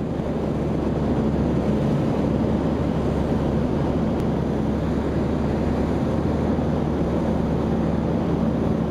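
Rotax 912 UL flat-four engine and propeller of a Dallach D4B Fascination ultralight running steadily in fast cruise, with wind rushing past, heard from inside the cockpit.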